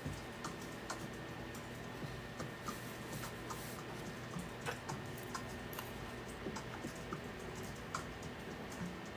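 Light, irregular clicks and taps of small tools and parts being handled at an electronics soldering bench, over a steady low hum.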